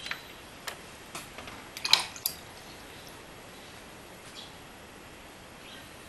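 A few light, irregular clicks and taps from a paintbrush and painting gear being handled on a desk. The loudest tap comes about two seconds in, with one faint one later.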